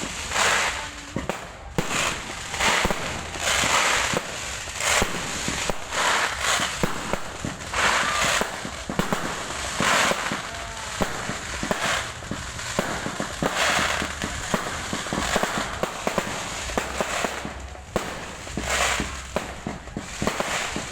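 Fireworks going off in quick succession: a steady stream of bursts, each with a hissing, crackling tail, one after another every second or so.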